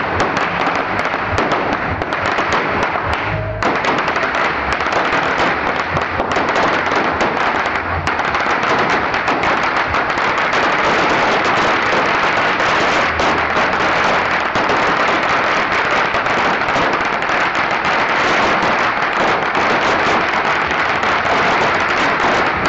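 A pagara, a very long string of firecrackers, burning down in one rapid, unbroken crackle of bangs, with only a short dip about three and a half seconds in.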